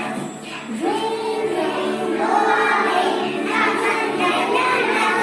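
A nursery-rhyme-style song: a group of voices, children's among them, singing together over music, coming in about a second in.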